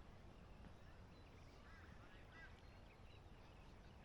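Faint bird calls, a few short chirps about halfway through, over a low steady rumble of wind.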